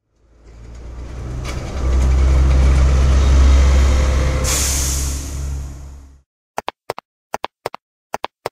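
A bus pulling in: its engine rumble grows louder, an air-brake hiss comes in about four and a half seconds in, then the engine sound stops abruptly. A quick run of short clicks, mostly in pairs, follows near the end.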